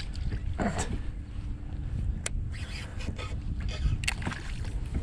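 Wind buffeting the microphone as a low rumble, with a few sharp clicks and knocks and light water splashing while a pike is fought from a kayak.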